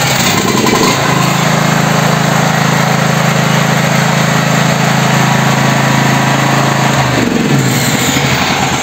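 Patriot GP 8210 AE generator's 458 cc single-cylinder petrol engine running steadily. It has just started after its valve clearances, which had opened up far too wide, were reset to 0.15 and 0.20 mm. Its pitch settles in the first second and shifts slightly from about seven seconds in.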